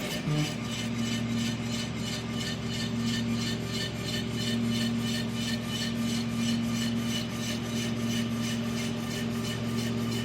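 Steady electric hum from the SLS 3D printer's drive motor, starting about half a second in and holding one even pitch.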